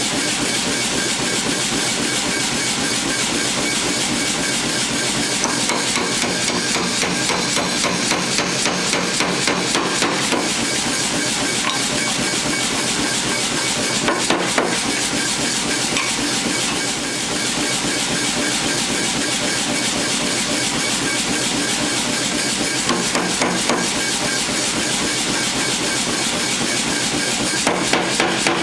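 Rapid, continuous hammer blows forging mild steel, in a steady rhythm over a constant noise.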